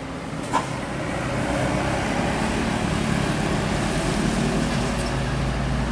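Heavy road vehicle's engine and tyre noise growing louder as it approaches over the first two seconds, then holding steady. A short knock sounds about half a second in.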